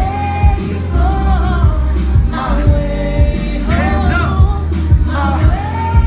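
Live hip-hop song played loud through a venue PA: a woman's voice sings long held notes over a drum beat of about two hits a second and heavy bass.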